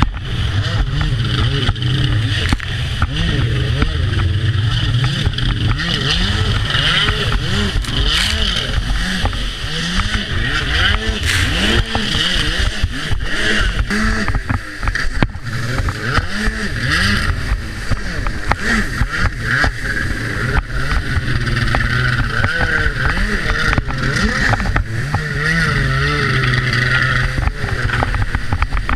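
Freeride jet ski engine revving up and down over and over, with rushing water and wind noise throughout.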